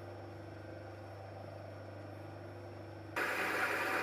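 A steady low hum, then about three seconds in an abrupt switch to a much louder Myford lathe running, turning a steel mandrel in a four-jaw chuck on a light finishing cut.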